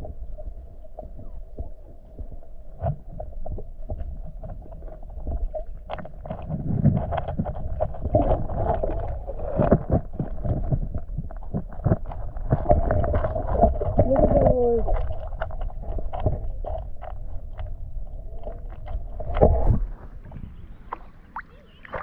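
Muffled water sounds picked up by a GoPro held underwater in its waterproof housing: sloshing, knocks and low rumbling over a steady hum. The hum and rumble drop away about twenty seconds in.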